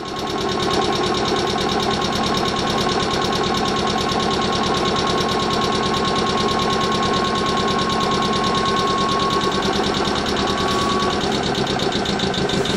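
Air compressor of an Ichibata Electric Railway 2100-series electric train running with a rapid, steady knocking rhythm and a steady whine. It cuts in suddenly just before this moment and holds a constant level.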